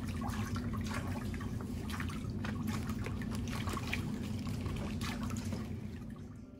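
Water trickling and splashing in a pedicure spa chair's foot basin as the feet are washed, over a steady low hum. It fades out near the end.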